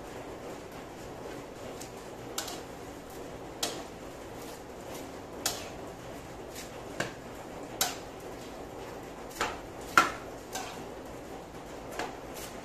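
A metal utensil clinking and scraping against a large metal wok while pancit bihon noodles are stirred and tossed, about nine irregular knocks, the loudest about ten seconds in, over a steady low hiss.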